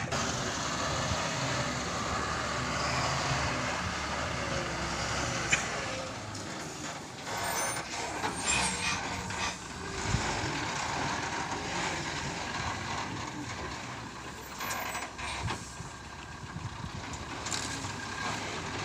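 Diesel engines of a JCB backhoe loader and a dump truck running steadily at work, with a few short knocks and clanks at intervals.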